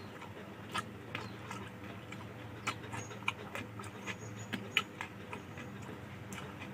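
Close-miked eating sounds of a person eating rice with fish curry: irregular wet smacks and clicks of chewing and lips, over a low steady hum.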